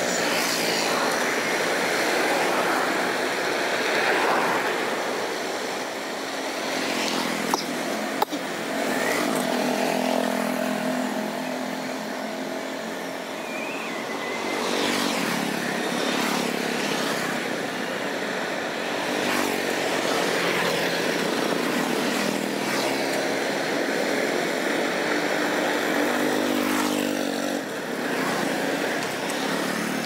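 Street traffic: small motorbikes and cars passing one after another, engines running steadily and swelling as each one goes by. A single sharp knock about eight seconds in.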